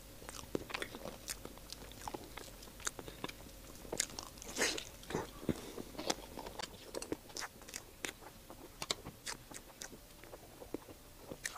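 Soft, close-miked eating of creamy mille-crêpe cake: wet chewing and mouth clicks, with light taps of a metal spoon on the plastic cake tray, as many scattered small clicks.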